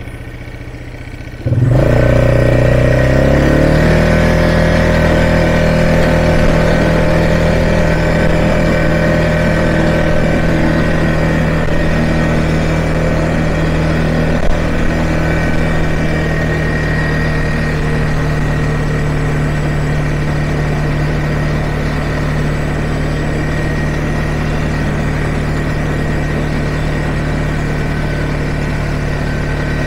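ATV engine idling, then revving up sharply about a second and a half in as the quad pulls away, its pitch climbing for a couple of seconds before settling into a steady run at speed.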